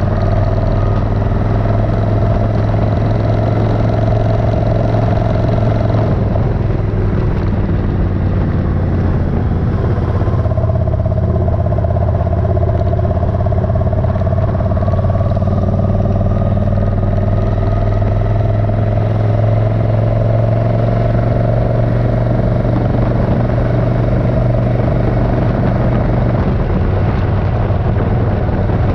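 Suzuki Intruder 1400's 1360 cc V-twin engine running at a steady cruise, with a rush of wind and road noise. The engine note changes about six seconds in, settles again around ten seconds, then climbs slowly.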